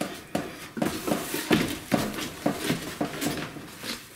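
Record album jackets being pulled out of a wire-divider record rack, the sleeves scraping and knocking against the metal wires in a run of irregular clacks and rustles.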